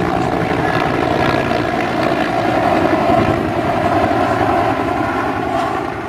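An aircraft flying low overhead: a loud, steady engine drone with a fast low flutter beneath it, easing off near the end.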